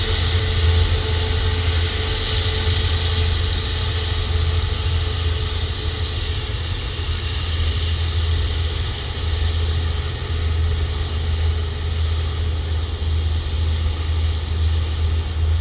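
Airbus A350's Rolls-Royce Trent XWB jet engines running at takeoff power, a steady low drone under a high hiss. A faint whine fades out about six seconds in.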